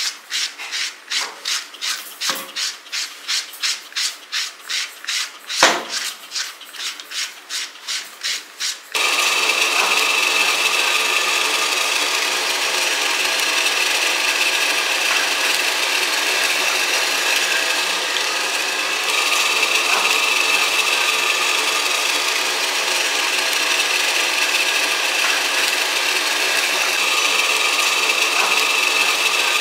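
Rhythmic rasping brush strokes through a dog's coat, about three a second, with one sharp knock partway through. About nine seconds in, a pet grooming blow dryer cuts in and blows steadily with a constant whine.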